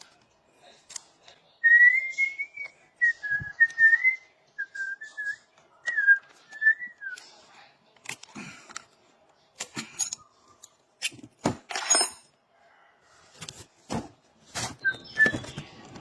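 A person whistling a tune in short wavering phrases for the first half, followed by a series of sharp clicks and knocks.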